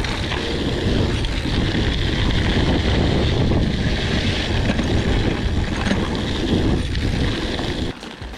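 Wind buffeting an action camera's microphone while a mountain bike is ridden, a steady rushing rumble that drops away sharply near the end.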